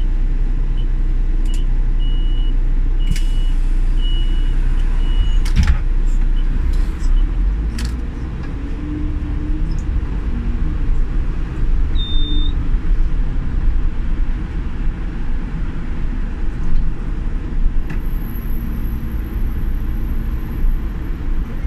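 City bus running, heard from on board: a steady low engine and road rumble with a few knocks and rattles. A run of short, evenly spaced beeps sounds a few seconds in.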